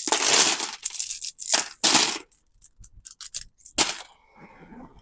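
Copper-plated steel coins clattering and clinking as a strong fishing magnet pulls them out of a pile of coins, with a long rattle at first, then shorter clatters, a few single clicks and one sharp clink near the end.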